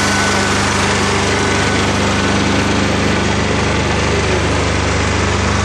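Small engine of a ride-on lawn tractor running steadily, a constant low hum.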